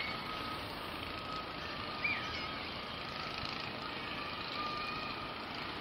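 Long Island Rail Road diesel passenger train, an EMD DE30AC locomotive pushing bilevel coaches, running at the station: a steady rush of engine and rolling noise. A thin high tone comes and goes over it every half second or so.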